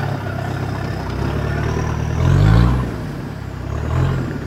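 Off-road 4x4's engine running hard, revved up twice: a strong rise and fall about halfway through and a shorter one near the end.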